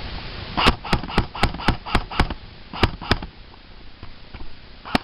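CYMA MP5K PDW airsoft electric gun firing single shots in quick succession: a run of seven sharp snaps at about four a second, then two more, then one last shot near the end.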